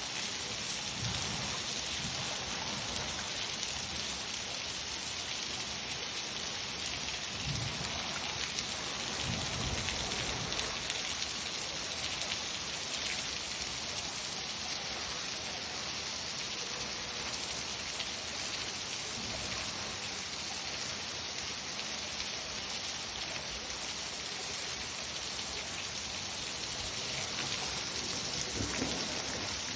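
Steady rain falling, an even patter on surfaces, with a few low rumbles of thunder.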